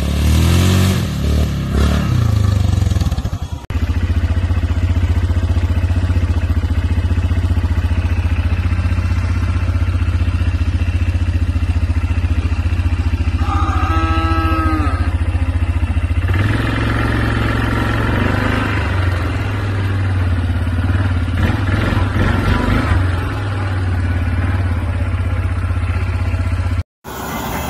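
ATV engine revving through a muddy pond for the first few seconds, then a long stretch of an ATV engine running steadily at low speed. A short pitched call sounds about halfway through.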